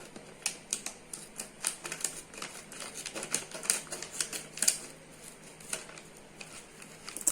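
Irregular light clicks and taps from a cardboard pasta pack and its contents being handled and opened.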